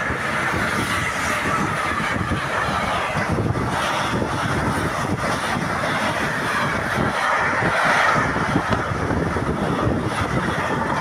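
Container freight train running past at close range: steady rolling noise from its loaded flat wagons, with the wheels clattering on the rails throughout.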